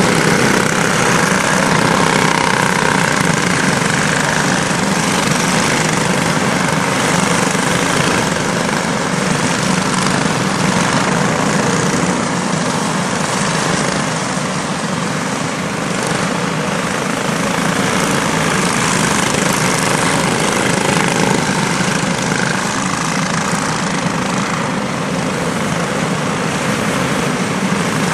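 A pack of quarter midget race cars running laps together, their small engines making a steady, continuous drone.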